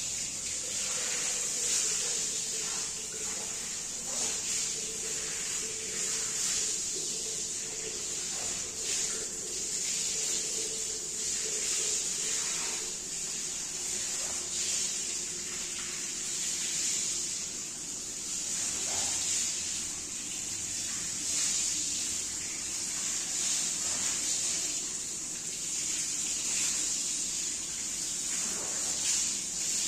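Water spraying and running over a rug being washed, a steady rush with a faint steady hum beneath it.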